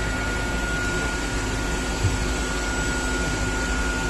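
Steady whirring hum of running electrical equipment in a motor-control cabinet, with a thin steady high whine and a soft thump about two seconds in.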